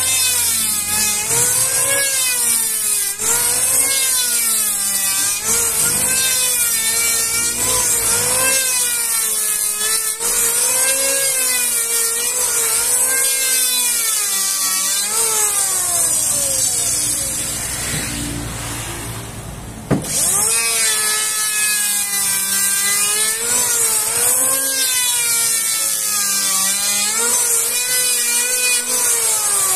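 Handheld electric wood planer cutting along a plank in repeated passes. Its motor pitch dips under load and recovers about once a second, over a steady high hiss. About halfway through the motor winds down; a few seconds later it starts again with a click, spins back up and goes on planing.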